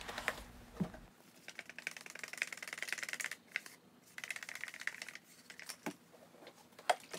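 A stick stirring acrylic paint being thinned with Floetrol and water in a red plastic cup: rapid, fine clicking and scraping of the stick against the cup wall in two spells, sped up to double speed, with a few single knocks near the end.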